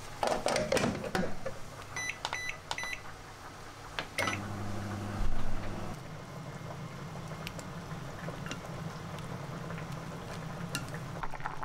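A glass dish clatters, then a microwave oven's keypad beeps four times. After a click the oven starts and runs with a steady low hum, with a low thump about five seconds in.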